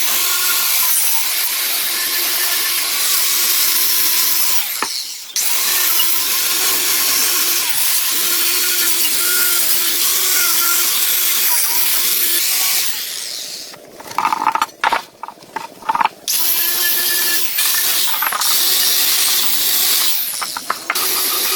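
A handheld electric power tool running under load in long stretches. It cuts out briefly about five seconds in, gives a series of short start-stop bursts around the middle, then runs steadily again.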